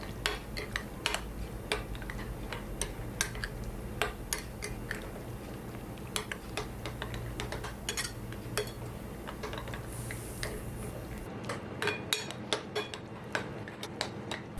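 A spoon clinking and scraping against a bowl while stirring chopped prawns with egg: sharp, irregular clicks, a few a second.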